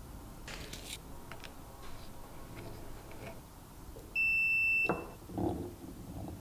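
Digital multimeter's continuity-test beep: one steady high-pitched beep, just under a second long, about four seconds in, as the probes bridge the lamp switch's contacts. The beep signals a closed circuit. Light clicks and handling knocks come before and after it.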